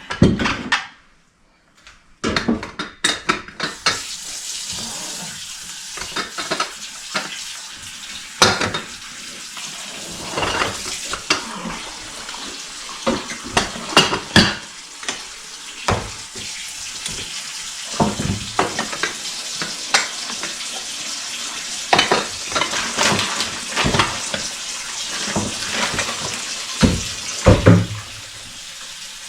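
Kitchen tap running into the sink while dishes and pots are washed by hand, with frequent clinks and knocks of crockery and pans against each other and the sink.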